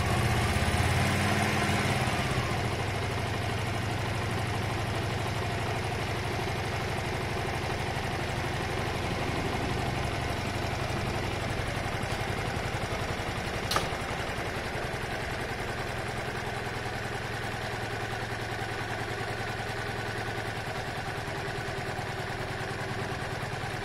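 Honda Varadero 125's V-twin engine idling as it warms up after a carb rebuild, a little louder for the first couple of seconds, then settling to a steady idle. It needed its intake partly covered to keep running, which the owner takes for a choke that is not working properly. A single sharp click partway through.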